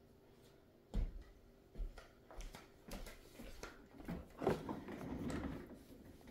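Rummaging through a box of sewing-machine accessories: a run of light knocks and clatter starting about a second in, with a stretch of rustling near the middle.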